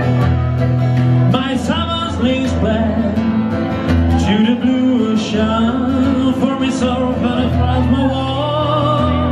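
A live band playing a song: electric bass, strummed acoustic guitar and organ, with a wavering lead melody coming in about a second and a half in.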